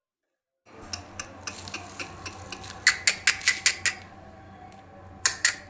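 A series of sharp clicks or taps over a low steady hum: a few scattered ones, then a quick run of about six loud clicks, about five a second, and two more near the end.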